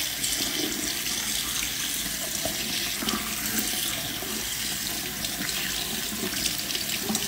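Tap water running steadily into a sink, splashing over a hand and small squishy toys held under the stream as the soap is rinsed off them.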